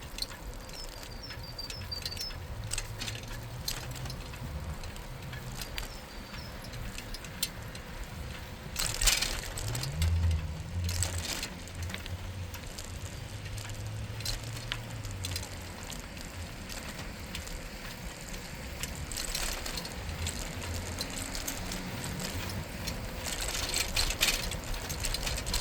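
Bicycle riding along a paved path: tyre and road noise with the clicking of the freewheel ratchet. A low engine hum rises and runs for a few seconds from about ten seconds in.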